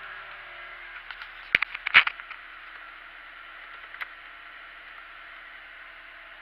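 Mitsubishi Colt engine idling at about 1000 rpm, heard from inside the cabin as a steady hum and hiss. A quick run of sharp clicks and knocks comes about a second and a half to two seconds in, and one more click about four seconds in, as the heater control knob is handled.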